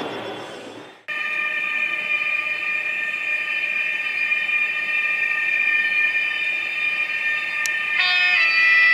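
Sound decoder of a Trix 22689 H0 model BR 147 TRAXX AC3 electric locomotive playing the traction converter and motor whine as it runs: a steady electric whine starting about a second in, with a set of stepping tones joining near the end.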